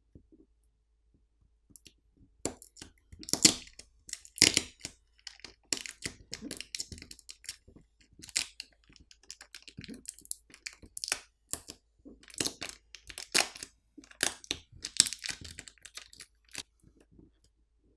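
Battery adhesive in a Samsung Galaxy S24 Ultra crackling and tearing in irregular sharp snaps and clicks as the battery is pulled and pried loose from the frame, starting about two seconds in.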